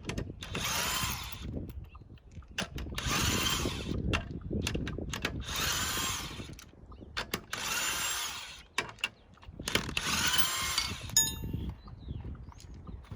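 Impact wrench spinning off a car's lug nuts in five bursts of about a second each, with clicks and handling between them. A short metallic ring comes just after the last burst.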